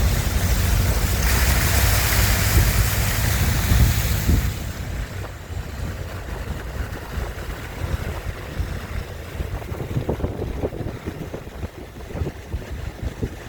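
Wind buffeting the microphone over the rushing of floodwater in a city street. It is loud for about the first four and a half seconds, then drops to a quieter rumble.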